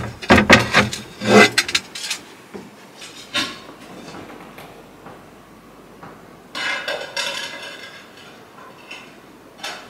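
Tiles being handled and set down against each other: a quick run of hard knocks and clinks in the first second and a half, then a knock about three and a half seconds in, a scrape and clatter around seven seconds, and a last knock near the end.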